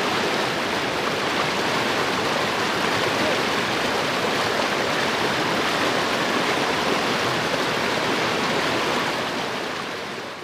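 Shallow jungle river rushing over rocks in white-water rapids, a steady noise of flowing water that begins to fade out near the end.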